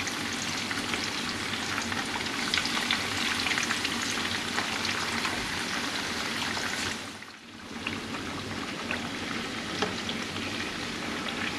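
Pompano fillets frying in hot vegetable oil in a high-walled pan: a steady sizzle with fine crackles and pops. It dips briefly about seven seconds in, then carries on.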